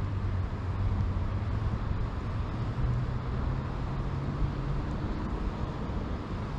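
Wind on the microphone: a steady low rumble that rises and falls slightly in loudness.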